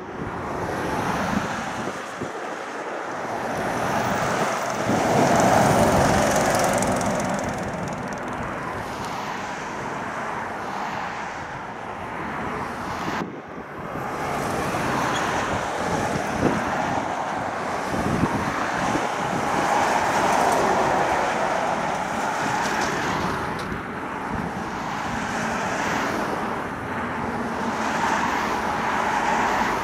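Road traffic: lorries and cars passing one after another, the tyre and engine noise swelling as each vehicle goes by and fading again, loudest about six seconds in. The sound briefly cuts out about thirteen seconds in.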